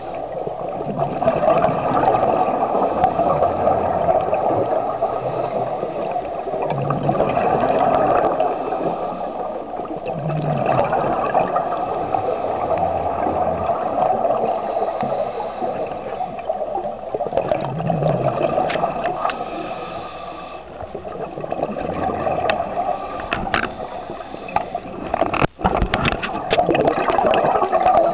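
Underwater sound of a scuba diver breathing through a regulator: a steady rushing, gurgling hiss of bubbles that swells every few seconds with each exhalation. Several sharp clicks and knocks come in the last third.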